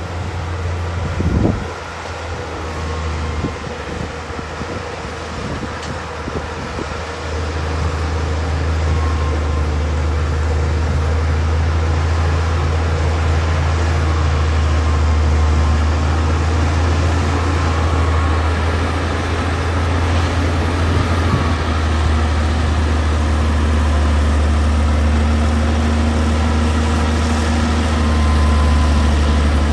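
Heavy diesel earthmoving machine engine running steadily under load, with a thump about a second and a half in and the engine growing a little louder partway through.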